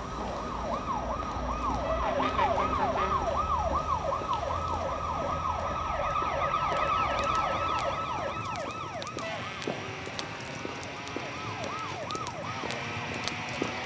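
Sirens in a fast yelp, each sweep rising and falling in pitch about three to four times a second, with more than one sounding together. About nine seconds in, the yelps slow and thin out, and a low rumble underneath drops away.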